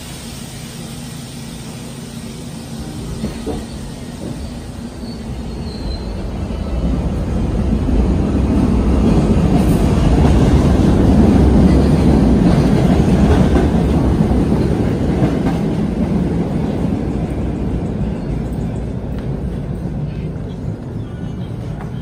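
Subway train rumbling along the tracks, growing louder to a peak about halfway through and then slowly fading, with some wheel rattle.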